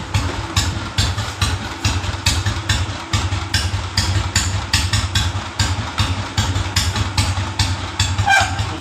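Old Royal Enfield Bullet's single-cylinder engine idling with an even thump, about four beats a second, the clutch-bell noise gone after the repair.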